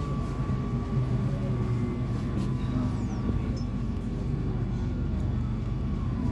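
Amsterdam metro train heard from inside the car: a steady low rumble with a thin steady whine above it that fades out about two-thirds of the way through.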